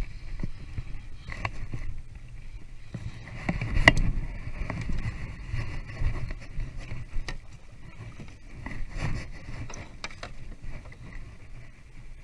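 Landing a fish from a kayak: a Shimano Ci4+ 3000 spinning reel whirring in bursts as it is cranked, sharp knocks of gear against the hull, and water splashing as the fish thrashes at the surface. The loudest knock comes about four seconds in.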